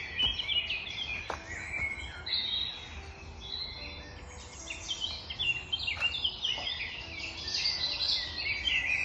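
Spring woodland birdsong: several birds singing at once, a dense, continuous mix of chirps and warbling phrases.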